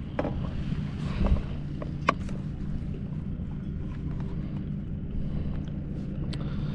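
Steady low engine hum, like a boat motor running, with a few short sharp clicks and knocks.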